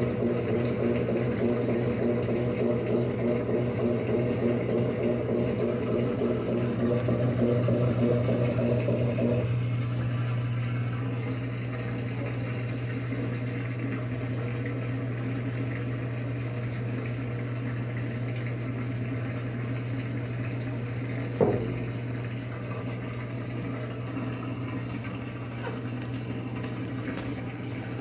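Electrolux LAC13 top-load washing machine agitating its load, with water sloshing over a steady motor hum. About nine seconds in, the churning drops away, leaving the hum and water sound. A single sharp click comes about twenty seconds in.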